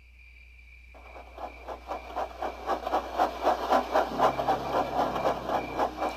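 Steam locomotive chuffing in a steady rhythm of about four beats a second, starting about a second in and growing louder as it approaches.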